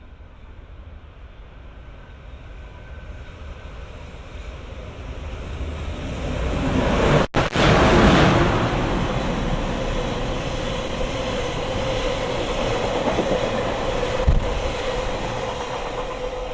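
A JR Freight EH500 electric locomotive approaches and passes close at speed, hauling a train of tank wagons. The noise builds to its loudest as the locomotive goes by about seven seconds in. Then the wagons roll past with a steady rumble, wheel clatter and a held hum, and there is a single sharp knock near the end.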